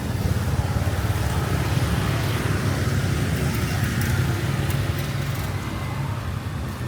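Steady road traffic: vehicle engines running as they pass, a continuous low rumble.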